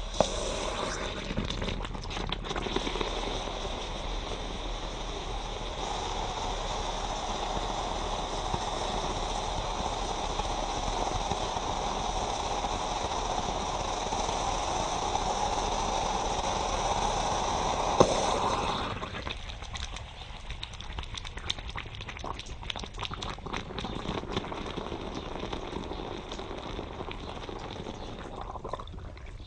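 Water poured onto something very hot inside a coconut hisses and boils hard, opening with a sharp crack and scattered pops. After about eighteen seconds the steady hiss stops fairly suddenly, leaving quieter rapid crackling and popping.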